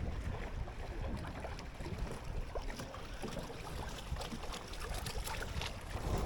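Wind on the microphone and water splashing along the hull of a Buccaneer 18 sailboat under way, with scattered small ticks and splashes throughout.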